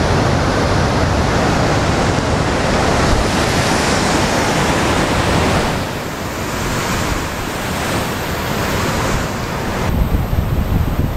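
Wind buffeting the microphone outdoors: a loud, steady rushing noise that turns gustier near the end.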